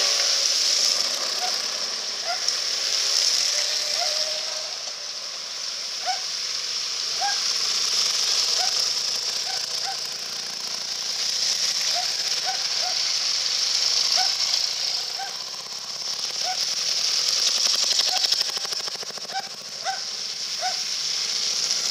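Motorcycles riding one after another through a shallow ford: the hiss and splash of spray rises and falls as each bike crosses, with engine noise low underneath.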